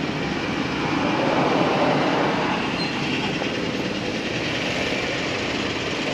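Steady rumbling vehicle noise that swells about a second in, then settles to an even level.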